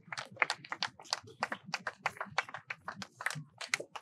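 Scattered, unsynchronised hand clapping from a few people, about five or six claps a second.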